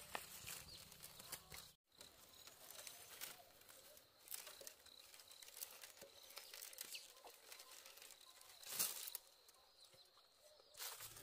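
Faint rustling and light clicking of dry split bamboo strips being handled and gathered into bundles, with one louder rustle about three-quarters of the way through.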